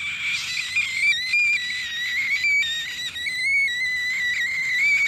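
A high, whistle-like tone held for about six seconds, wavering and stepping slightly in pitch, that cuts off near the end.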